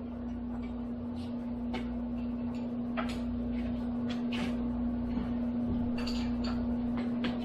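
A steady machine hum with a low rumble under it, broken by scattered metal clinks and knocks from work on a Bridgeport milling machine's head.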